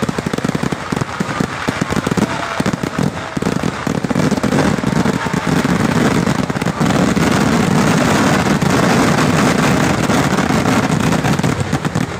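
Massed fireworks barrage: firecracker bangs going off in a fast, overlapping string that merges, from about four seconds in, into an unbroken rattle of explosions, loudest in the second half.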